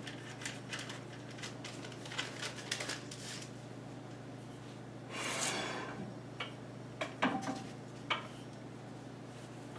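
Kitchen handling sounds: scattered light clicks and taps, a brief rustle about five seconds in, then a few sharper taps, from the cook handling the puff pastry and rolling pin at the counter.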